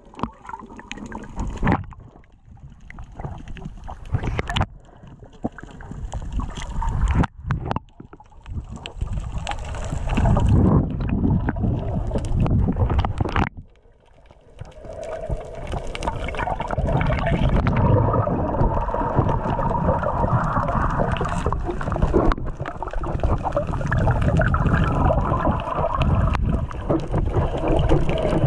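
Muffled underwater water noise around a submerged camera housing: sloshing and gurgling with a few sharp knocks. It turns louder and steadier about halfway through.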